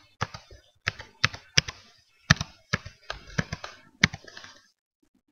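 Typing on a computer keyboard: a quick, uneven run of key presses as a password is entered, stopping shortly before the end.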